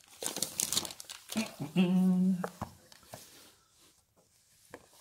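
Thin plastic wrapping crinkling and rustling as a bundle of comic books is opened and the comics are handled. About a second and a half in, a short hummed "mmm" from the person, the loudest sound, followed by a few small clicks.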